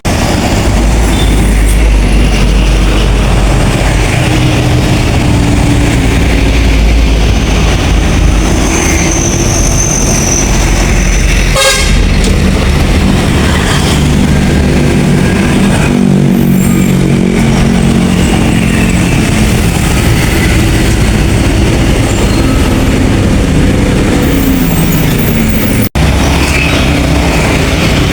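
Bus passing with its engine running, then a multi-tone telolet air horn playing a tune of stepped notes through the second half.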